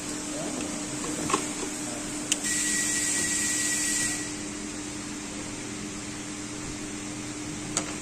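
Steady machine hum with a few sharp clicks as the plastic fuel pump module is handled. For about two seconds near the middle the hum is louder and a thin steady whine joins it.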